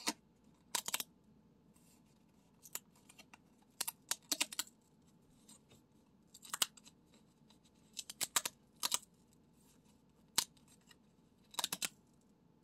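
Perforated paper tabs on a pull-tab lottery ticket being torn open one after another. Short, sharp paper rips and crackles come in clusters every second or two.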